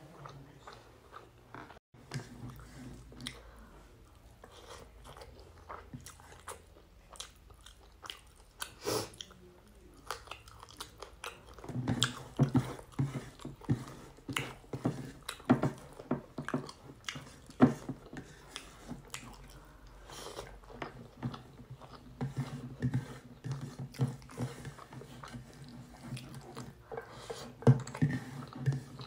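Close-up eating sounds: a person chewing and smacking on rice and fish curry, with fingers mixing and scraping the food on a ceramic plate. The short wet clicks grow denser and louder about halfway through.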